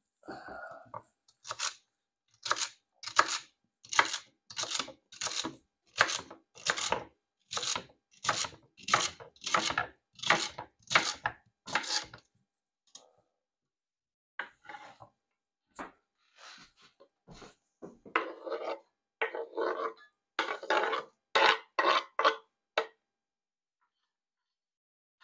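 Chef's knife chopping celery on a cutting board: a steady run of sharp knocks, about one and a half a second, then after a short pause a looser, uneven run of knocks.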